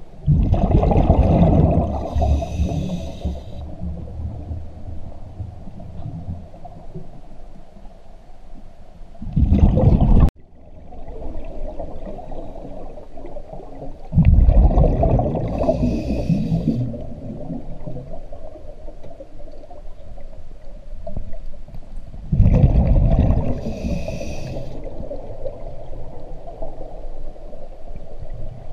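Scuba diver breathing underwater through a regulator: loud gurgling bursts of exhaled bubbles alternating with the hiss of the regulator on each breath, repeating several times.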